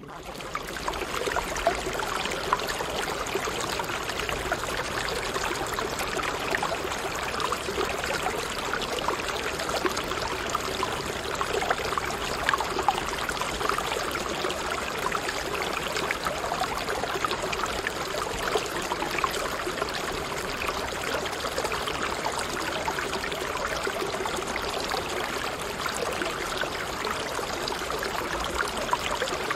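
Steady sound of a flowing stream, rushing and trickling water, fading in over the first second.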